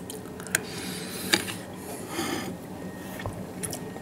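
An opened tin can of sprats being handled on a plate: two light metallic clicks, about half a second and about one and a third seconds in, with short scraping rubs.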